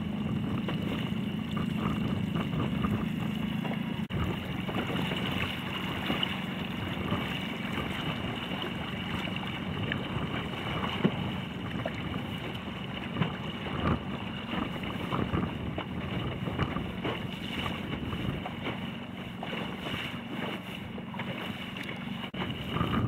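Wind buffeting the microphone and water splashing and lapping against a boat's hull, over a steady low hum.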